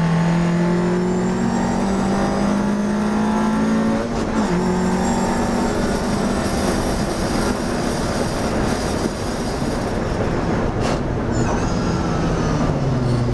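Classic sports racing car's engine heard from inside the cockpit, pulling hard and rising in pitch, with a sudden drop about four seconds in as it changes up a gear. It then holds and falls away as the car slows for a corner near the end.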